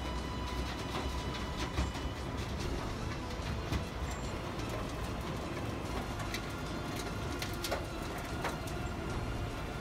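Wirtgen W200i cold milling machine running steadily while its discharge conveyor drops milled asphalt into a dump truck bed, with scattered sharp knocks from falling chunks.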